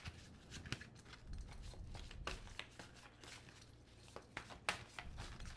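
Cards of an oracle deck, the Dark Mirror deck, being shuffled and handled for a draw: a run of faint, irregular soft clicks and flicks.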